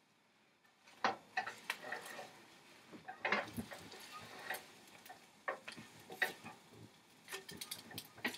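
Silicone spatula stirring scrambling eggs in a nonstick skillet, knocking and scraping against the pan in irregular clicks, starting about a second in.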